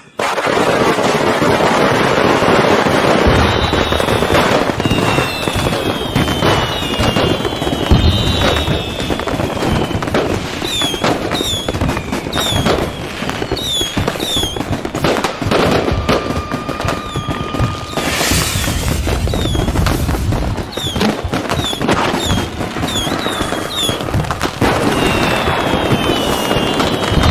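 Fireworks display: dense crackling and many sharp bangs of bursting shells, with a few deep booms and runs of short whistles that fall in pitch.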